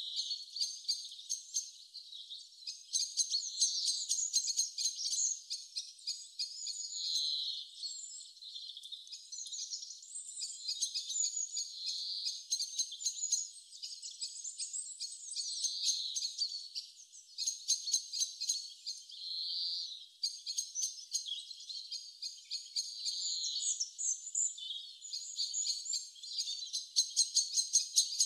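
Small birds chirping and trilling continuously, a busy chorus of short high-pitched calls and rapid trills with no low sound beneath.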